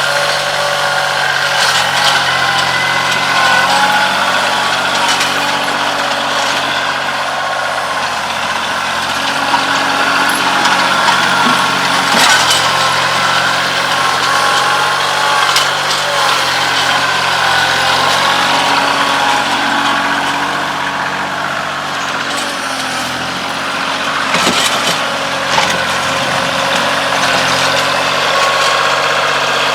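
Kioti CK2610 compact diesel tractor's engine running steadily, with a few sharp knocks and clanks.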